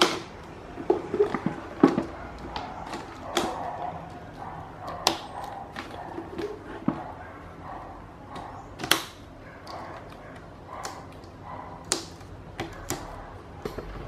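Sharp plastic clicks and light rattling, scattered a second or few apart, as the clips joining the front and rear grilles of a Mondial VTX-40 fan are fitted and snapped shut.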